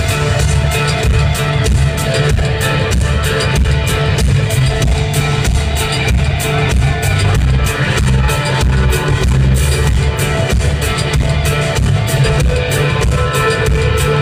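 Live band playing loud, with a drum kit keeping a steady beat over heavy bass and guitar, heard from the audience.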